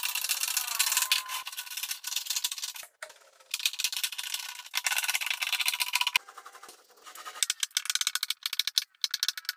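Wooden cutting-board strips clattering and scraping against each other and the table as they are handled and stacked into a glue-up, in quick runs of clicks with short pauses.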